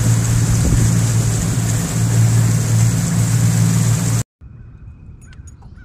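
Mercury outboard motor running steadily at speed, pushing the boat through the water, with a strong low hum and a wash of water and air noise. It cuts off abruptly about four seconds in, leaving only quiet open air with a few faint short sounds.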